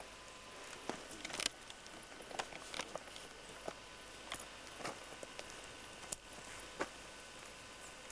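Footsteps on a dirt trail: a string of irregular soft scuffs and crunches, roughly one every half second to second, over faint steady hiss.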